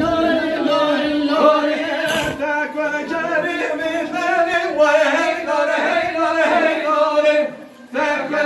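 Men singing a halay dance song unaccompanied, one wavering melody line held on with a short break for breath about seven and a half seconds in.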